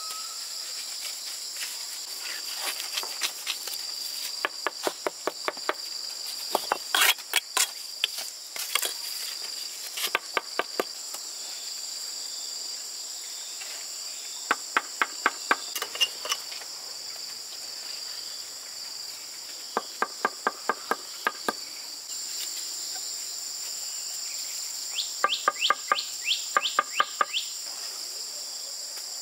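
Quick runs of hammer blows, about four a second, coming in bursts of a few strokes at a time with pauses between. A steady chorus of crickets sounds underneath.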